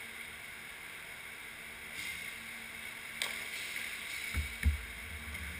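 Indoor inline hockey rink ambience: a steady hiss of the hall with distant play. There is a sharp click about three seconds in and two low thumps near the end.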